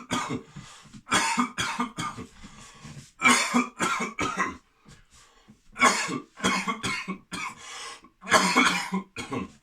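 A man coughing hard in several bouts of a few coughs each, with short pauses between the bouts. The coughs are forced on purpose, not from illness.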